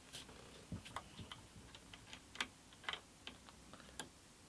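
Faint, irregular small metal clicks and taps of an Allen key working the grub screws on a pillow block bearing's locking collar as they are tightened onto the sander's axle.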